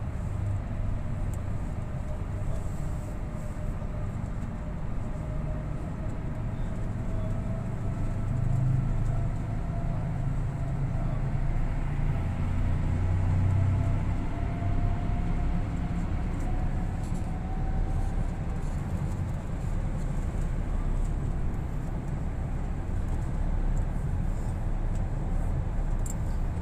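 Coach bus on the move, heard from inside the cabin: a steady low rumble of engine and road noise, with a faint whine that slowly rises in pitch.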